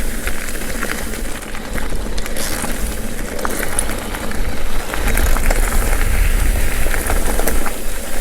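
Wind buffeting the microphone over the rumble of mountain-bike tyres rolling along a dirt trail, with scattered small clicks and rattles from the bike; it grows a little louder about halfway through.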